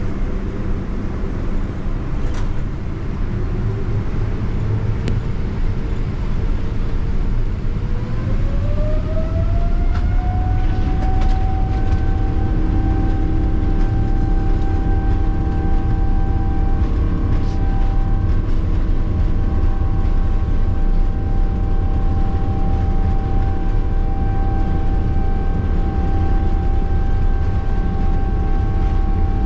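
Boeing 777-200ER's twin jet engines heard from inside the cabin, spooling up: a whine rises in pitch over several seconds and then holds steady over a constant low rumble as thrust is set for the takeoff roll.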